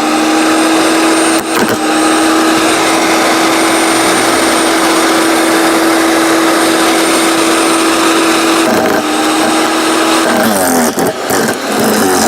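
15-amp electric wood chipper shredder running with a steady motor hum and a noisy grinding rush. Near the end the hum sags and wavers, with a few sharp snaps, as the cutting blades chew into a branch and the motor comes under load.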